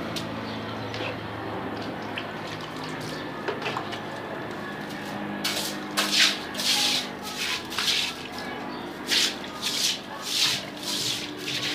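Water washing over stone stairs. From about five and a half seconds in, a broom scrubs the wet steps in repeated swishing strokes, one or two a second.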